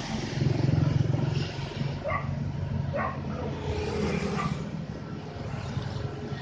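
Diesel engine running steadily, louder for the first second or so, with a dog barking a few times and a motorbike passing about four seconds in.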